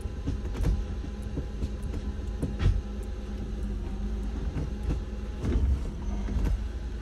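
Daewoo Matiz engine idling steadily, with scattered light clicks and knocks over it.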